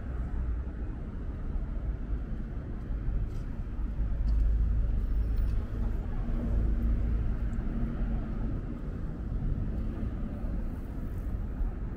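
Road traffic: a car driving past with a low, steady rumble that swells about four seconds in.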